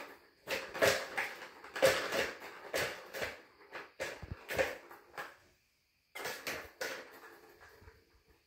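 Plastic balls knocking and rattling around the tiers of a tower-of-tracks cat toy as a cat bats at them: a busy run of knocks for about five seconds, a short pause, then a second flurry that fades out.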